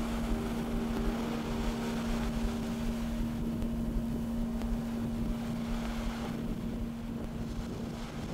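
Small waves washing onto a sandy beach, with wind rumbling on the microphone. A steady low tone is held under it, joined in the first half by a broken higher one, and fades out near the end.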